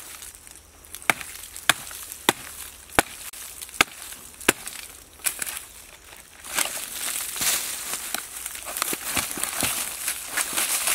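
A blade chopping into a rotten log, about seven sharp strikes a little over half a second apart. From about six and a half seconds in, the crackling and crunching of crumbly decayed wood being broken apart by hand.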